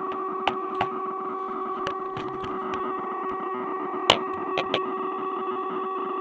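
Electronic noise machine droning: several steady held tones over a hiss, feedback-like, broken by a few sharp clicks, the loudest about four seconds in.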